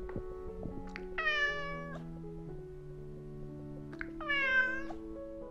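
A domestic cat meowing twice, each meow lasting well under a second, about three seconds apart, over soft background music.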